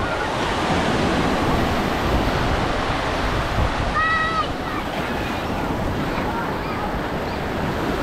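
Sea surf washing onto the beach in big waves: a steady rush of breaking water, with wind buffeting the microphone. A brief high-pitched call stands out about four seconds in.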